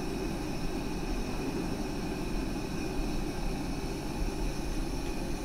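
Steady whooshing hum of a running kerosene fan heater, with a faint high whine over it.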